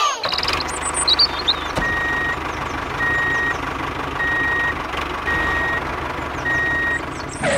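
A vehicle's reversing alarm beeping five times, about once a second, over the steady noise of a running engine.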